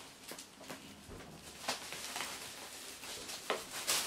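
Bubble wrap and packing tape on a large wrapped package rustling and crackling under the hands as it is handled and turned. Faint rustling with scattered short sharp crackles, the sharpest near the end.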